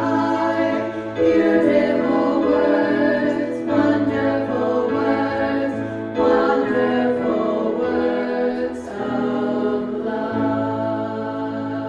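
A choir singing a slow hymn with sustained chords that change every couple of seconds.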